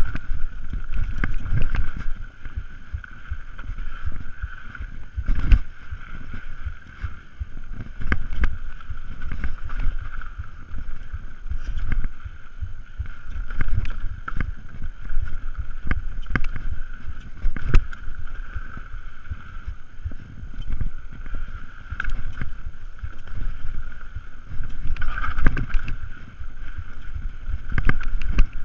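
Mountain bike riding fast down dirt singletrack: tyres rumbling over dirt and roots, with frequent knocks and rattles from the bike, wind over the camera microphone, and a steady high buzz.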